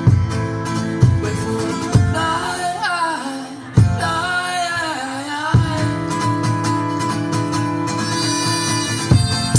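Live acoustic song: acoustic guitar strummed in strong strokes, with sustained keyboard chords underneath. A voice sings a line that slides up and down in pitch about three to five seconds in.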